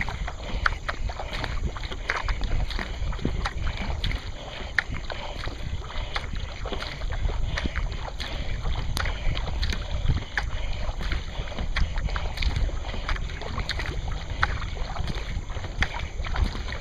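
Water rushing and slapping along the hull of a narrow racing boat moving at speed, with wind rumbling on the microphone and frequent short, sharp splashes about once or twice a second.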